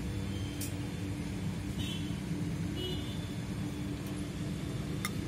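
A steady low mechanical hum holding one pitch throughout, with a few faint light ticks.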